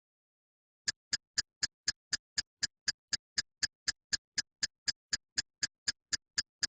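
Steady ticking like a clock, about four evenly spaced ticks a second, starting about a second in over otherwise dead silence.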